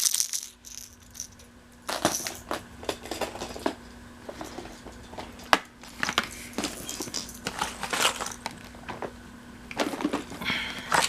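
Crankbait lures and their plastic packaging being handled: scattered bursts of plastic crackling and small clicks, with light rattling.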